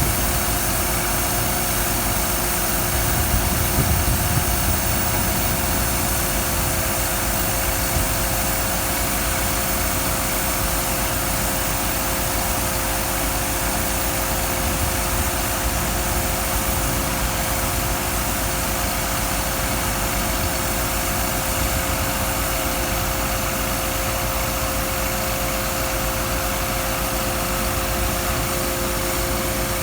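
An engine idling steadily, with a few steady humming tones over a broad rumble; a little louder for a moment about four seconds in.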